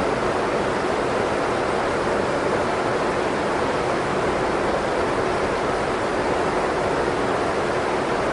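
Steady rushing noise of a jet aircraft, an even hiss with no change in pitch or level.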